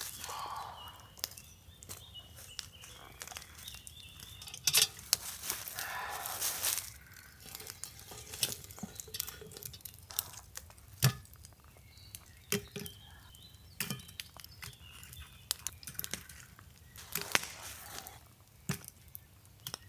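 Scattered knocks, clinks and scraping as a cast-iron Dutch oven is settled into campfire coals and coals are piled on its lid, with a longer stretch of scraping and rustling about five to seven seconds in.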